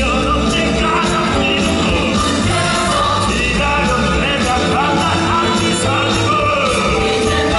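Live musical-theatre number: a male singer belting over the full musical accompaniment, with the ensemble behind him.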